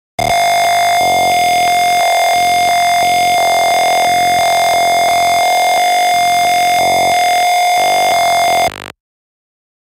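Simulated Arduino piezo buzzer sounding one steady 700 Hz tone, rich in overtones, that starts a moment in and cuts off suddenly near the end. The buzzer is on because the potentiometer reading is above the sketch's threshold.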